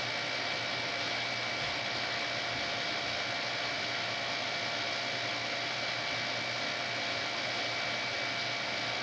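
Breaded chicken nuggets frying in hot oil: a steady, even sizzling hiss with a faint constant whine running through it.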